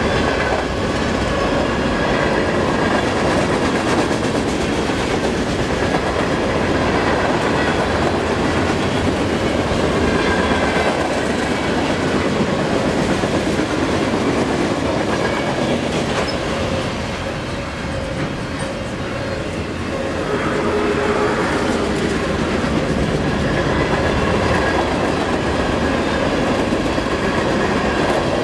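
Freight cars of a manifest train rolling through a grade crossing: a steady rumble with clickety-clack of wheels over the rail joints, easing briefly about two-thirds of the way through.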